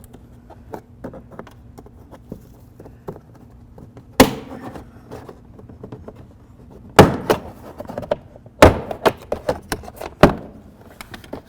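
Plastic retaining clips of a Nissan Altima's door trim panel snapping loose as the panel is pried off with a plastic trim tool. There are about four loud sharp snaps a second or two apart, with lighter plastic clicks and taps between them.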